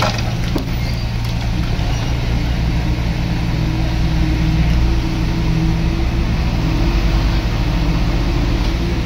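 Diesel engine of a small Komatsu D21P bulldozer running steadily at a constant speed.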